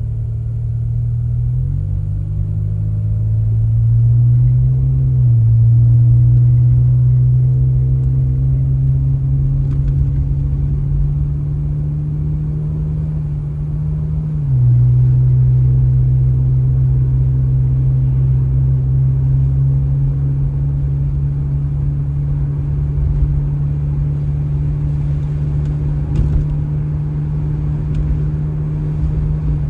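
A car's engine droning steadily while driving, its pitch stepping up twice early on and dropping once about halfway through.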